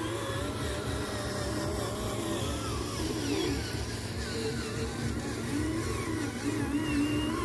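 Small electric motors of radio-controlled construction toys whirring, the pitch wavering up and down as the throttle changes, over a low gear rumble.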